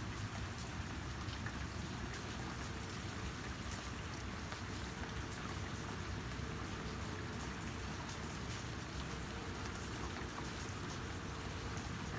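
Steady rainfall, a continuous patter of drops with fine individual ticks.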